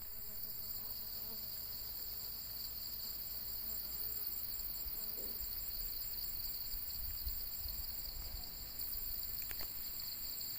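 Steady chorus of insects such as crickets, a continuous high-pitched trilling at two pitches that doesn't let up.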